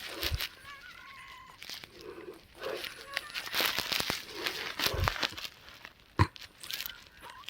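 A woman's breathing, the breaths carrying high, thin whistling wheezes, the sign of narrowed airways. A sharp click about six seconds in is the loudest sound.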